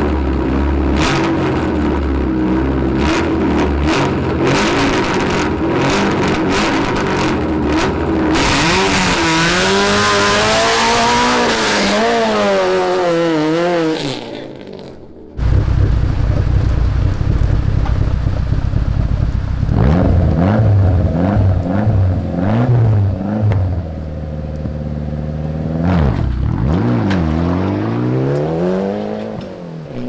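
A rally-prepared hatchback's engine idles with rapid popping from the exhaust, then is revved for several seconds with the pitch wobbling up and down under a loud hiss. After a brief break, a Mitsubishi Lancer Evolution III rally car's turbocharged four-cylinder engine is blipped again and again, its revs sweeping up and down.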